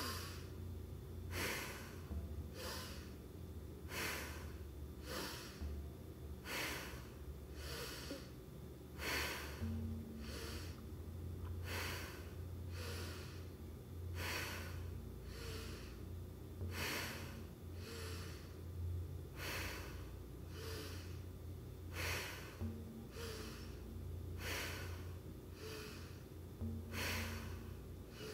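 A person's forceful breathing in a steady rhythm: a sharp, powerful exhale about every 1.3 seconds, each one timed to a forward pump of a seated yoga breathing exercise. A steady low hum runs underneath.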